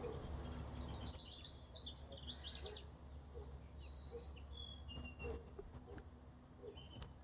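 Small birds chirping faintly: a quick run of high chirps, then a few short whistled notes, one of them falling in pitch, over a steady low rumble.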